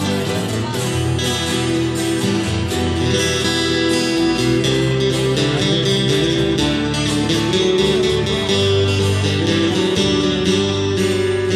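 Acoustic guitar strummed steadily in a song, chords ringing with a regular strumming rhythm.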